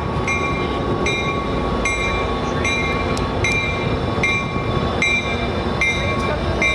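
Metrolink commuter train arriving, its bell ringing in regular strokes a little under a second apart over the steady rumble of the train, with a thin steady whine above.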